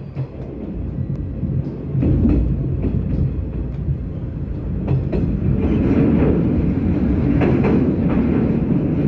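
JR 381 series limited-express electric train running at speed, heard from inside the passenger car: a steady rumble of wheels on rail with occasional clicks over rail joints. The rumble gets louder about halfway through.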